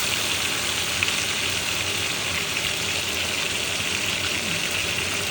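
Whole parrot fish frying in a hot skillet: a steady sizzle with a few small crackles and pops.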